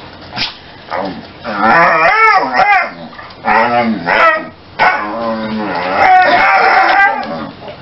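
Basset hound vocalizing while rolling on its back: several runs of drawn-out calls that rise and fall in pitch, the longest and loudest near the end.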